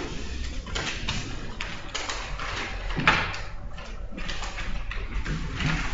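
Papers rustling and being handled on a table, with scattered light taps and knocks; one sharper knock about three seconds in.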